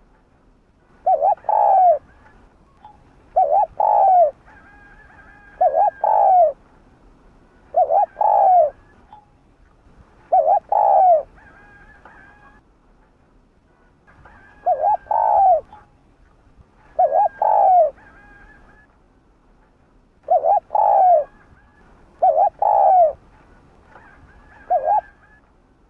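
Spotted dove cooing, its two-part call repeated about every two seconds, a short note followed by a longer one, with a brief pause midway.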